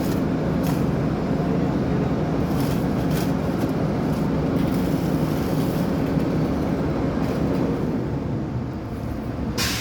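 Engine of heavy road-construction machinery running steadily, a low even hum, with a few short hissing sounds and a louder hiss just before the end.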